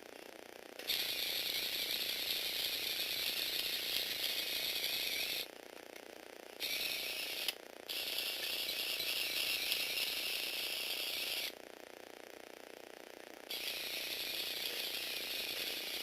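Small Lego Technic robot's motor-driven plastic gear mechanism running with a steady mechanical clatter, stopping and starting several times: runs of a few seconds broken by short pauses, the longest about two seconds near three quarters of the way through.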